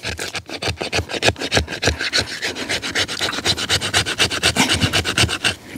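A Demko FreeReign fixed-blade knife held crosswise and scraped quickly down a wooden stick, about five rasping strokes a second, raising fine wood fuzz for tinder.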